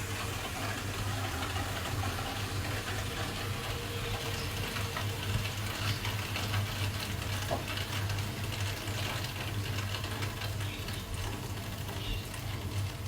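Vokera Procombi 85HE combi boiler running with a steady low hum, under an even hiss and trickle of water as air is purged from the freshly repressurised heating system.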